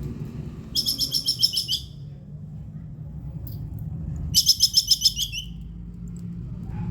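Plantain squirrel (bajing kelapa) giving its 'kekes' alarm chatter: two bursts of rapid, harsh, high-pitched chattering notes, each lasting about a second, roughly three seconds apart. A low rumble sits underneath.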